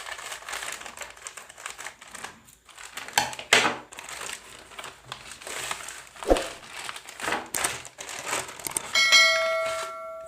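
Plastic and paper packaging crinkling and rustling as a delivery package is opened by hand, with a few sharp rips. Near the end a short bell-like ring sounds for about a second.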